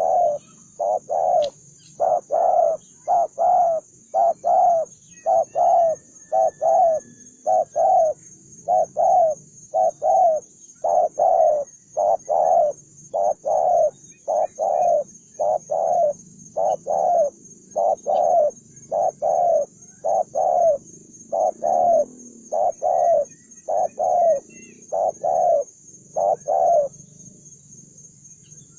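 Spotted dove cooing over and over, loud low coos in quick phrases of two or three notes, stopping about two seconds before the end.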